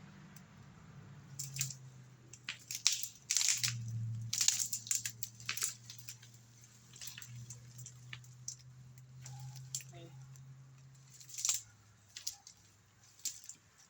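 A chainsaw idling low and steady, with irregular cracks and crunches of wood and brush over it, thickest in the first few seconds and once more near the end. The idle fades near the end.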